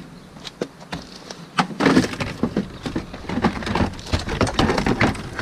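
Engine under tray being pried off its clips and pulled down from the underside of a Subaru STi: scattered clicks at first, then a busy run of clattering and scraping from about two seconds in.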